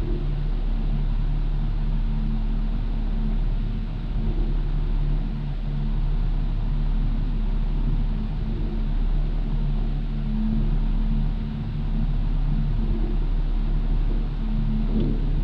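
2000 Toyota 4Runner idling steadily through a Flowmaster Super 40 series muffler, a low even drone heard from inside the cab.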